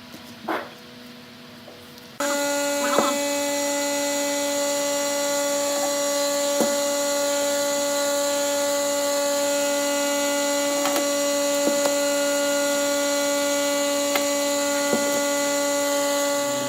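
An electric woodworking power tool switches on about two seconds in and runs steadily at an even pitch, with a few light knocks over it.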